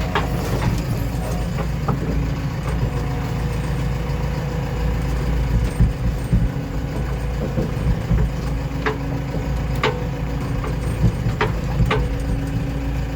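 Diesel engines of a backhoe loader and tractors running steadily at work, with a few short sharp knocks or clanks.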